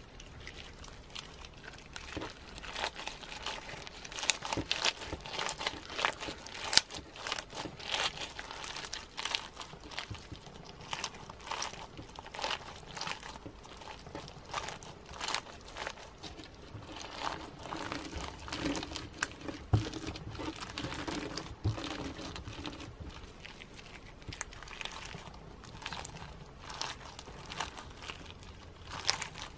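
Clear slime packed with snowflake-shaped sequins being squeezed and kneaded by hand, the sequins giving a crunchy, irregular crackling.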